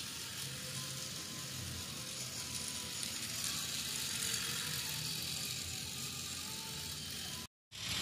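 Battery-powered toy train running around a plastic track: a steady small-motor whir with the wheels rattling on the rails. It cuts off abruptly near the end.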